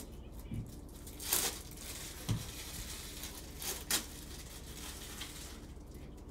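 Two short bursts of crinkling and tearing, typical of a foil trading-card pack wrapper being handled and ripped open, with a few soft low thumps between.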